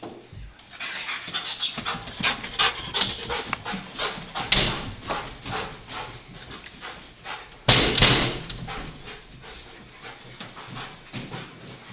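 Young Belgian Malinois panting hard in quick, rhythmic breaths while it searches, about three to four breaths a second. Two loud knocks break in about four and a half seconds in and again near eight seconds, the second louder.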